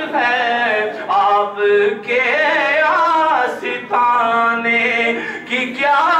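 A man singing an Urdu naat unaccompanied, drawing out long, wavering melismatic notes.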